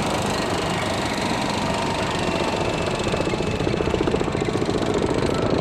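Heavy engine running steadily, with a rapid rhythmic pulsing that grows stronger over the last couple of seconds.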